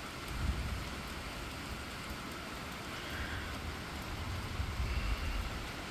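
Steady rain falling on a wet road and lawn, an even hiss, with two brief low rumbles: one about half a second in and a longer one near the end.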